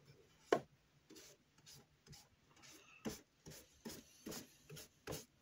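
Repair solution being spread by hand on the polishing pad of a JFJ Easy Pro disc repair machine: a dozen or so short, irregular rubbing strokes and taps, with one sharper knock about half a second in.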